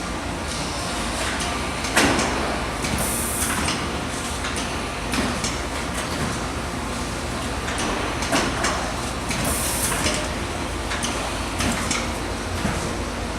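Unibind BCC-10 bind, crimp and cooling machine running: a steady mechanical hum with scattered clicks and clunks, a loud knock about two seconds in, and two short hisses, one about three seconds in and another near ten seconds.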